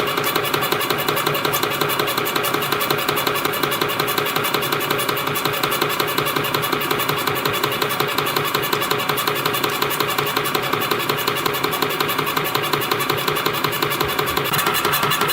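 YHM CF-310 CNC compression-spring coiling machine running, feeding and coiling 0.4 mm wire into springs. It makes a steady mechanical clatter with a fast, even rhythm.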